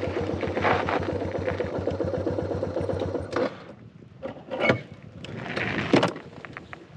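Motorcycle engine running at low speed with an even, rapid pulsing beat; about three seconds in it cuts out, leaving a few scattered crunches and knocks.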